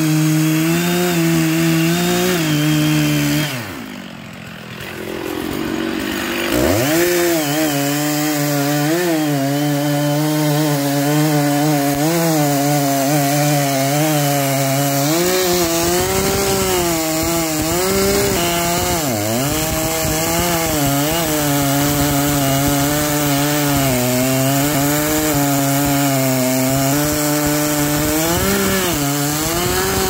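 Large two-stroke chainsaw cutting through a thick slash pine trunk, its engine pitch wavering under load. About four seconds in the engine drops and goes quieter for a couple of seconds, then revs back up and cuts on.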